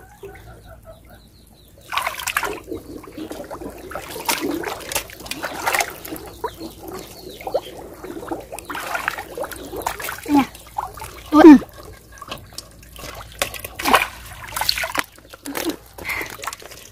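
Shallow muddy water sloshing and splashing in irregular bursts as hands grope through the water and mud for fish, with the loudest short splash about two-thirds of the way through.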